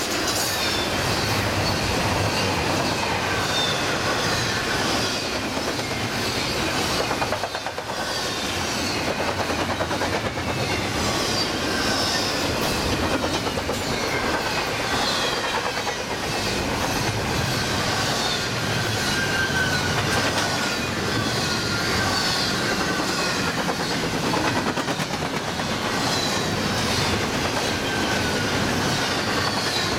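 Double-stack intermodal freight train of container well cars rolling past at speed: a steady rumble and clatter of steel wheels on the rails, with thin high wheel squeals that slide down in pitch, recurring every second or two.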